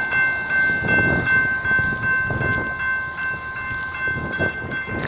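Norfolk Southern SD60E diesel locomotive's air horn holding one long chorded blast, with a lower note coming in about a second in and dropping out near four seconds, over the rumble of the train on the rails.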